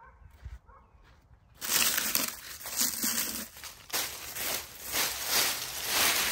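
Dry crinkling and rustling that starts abruptly about a second and a half in and goes on in repeated strokes, after a few faint clicks.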